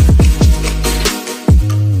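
Electronic background music with a heavy beat: deep kick drums that drop in pitch several times a second over sustained bass notes.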